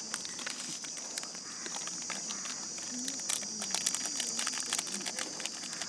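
Insects, crickets by the sound, trilling steadily and high-pitched in the background, with scattered faint clicks and rustles throughout.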